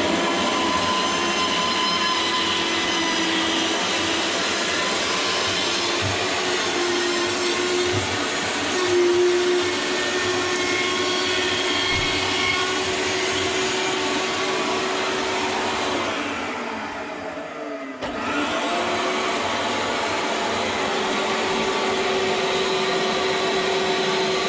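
A steady whining electric motor of the vacuum kind. It winds down about 17 seconds in, then spins back up about a second later and runs on.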